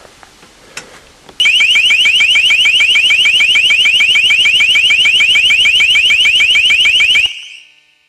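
LRAD long-range acoustic device broadcasting a loud electronic warbling alarm tone to drive birds off: rapid rising chirps, about seven a second. It starts about a second and a half in, cuts off near the end, and fades out briefly.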